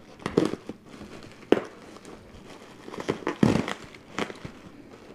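Plastic bubble wrap being slit with a knife and pulled apart by hand, crinkling and rustling, with a few sharp crackles.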